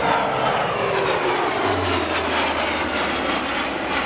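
Kawasaki C-1 jet transport flying past, its twin turbofan engines giving a loud, steady noise whose whine slides down in pitch as it goes by.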